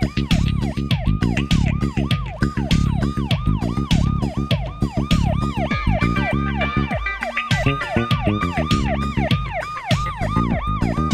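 Fast yelping police siren, its pitch climbing and falling about three times a second, over background music with a steady beat.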